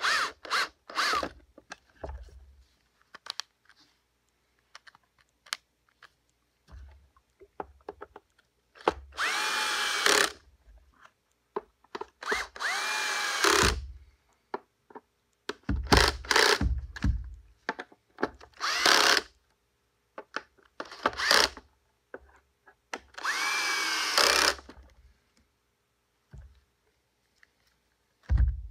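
Cordless drill driving screws in the plastic housing of a Stihl shredder vac, in a series of short runs of one to two seconds each. The motor's whine rises in pitch as each run spins up, with small clicks between runs.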